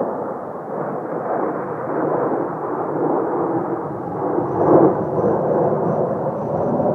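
Kawasaki T-4 jet trainers of the Blue Impulse team, their twin turbofans making a heavy rumbling roar that swells and peaks about two-thirds through, with a faint high turbine whine coming in then. Gusty wind adds to the rumble.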